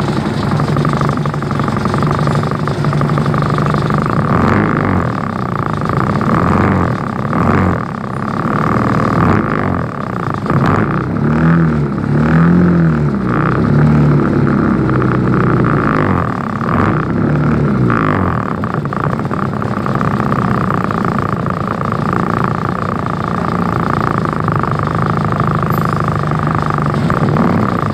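Vehicle engines idling in slow, close-packed traffic, motorcycles and a truck among them. A steady engine hum runs under it, and an engine revs up and down several times about halfway through.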